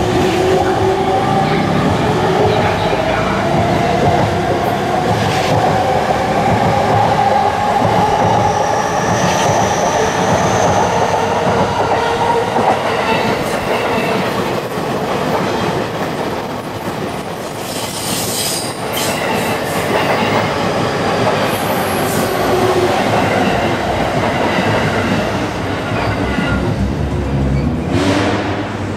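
JR East electric commuter trains running close by. An E231-500 Yamanote Line train accelerates away with the whine of its traction motors rising in pitch over about ten seconds. Then an E233-1000 Keihin-Tohoku Line train rumbles past, its wheels clacking over rail joints in a quick run of clicks.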